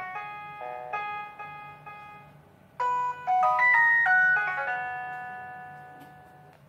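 Samsung polyphonic ringtone playing on a ZTE Z222 phone: a melody of bright synthesized notes. A louder phrase comes in about three seconds in and ends on a held chord that slowly fades away.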